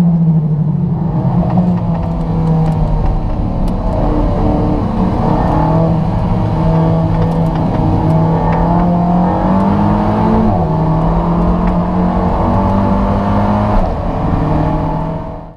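Alfa Romeo 4C's mid-mounted 1.75-litre turbocharged four-cylinder engine running hard on track, heard from inside the cabin, its pitch holding fairly steady with small rises and dips.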